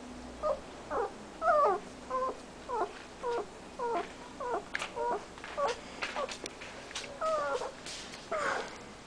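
German shepherd puppies whimpering: a run of short, wavering squeaks, one about every half second, with a couple of longer drawn-out whines near the end.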